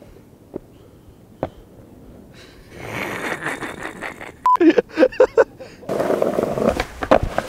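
A montage of skateboard sounds: a few sharp clicks, then rushing rolling noise. Skateboard wheels run loudly over brick paving near the end. In the middle comes a short beep and a second of voice-like sound from a cut-in comedy clip.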